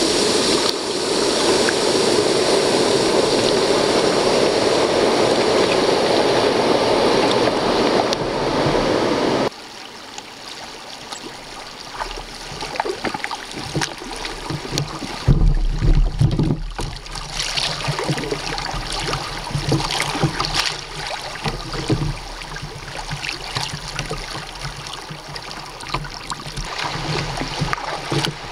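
River rapids rushing loudly and steadily past the kayak, cutting off suddenly about a third of the way through. Quieter flowing water follows, with scattered small splashes and clicks and a few low bumps.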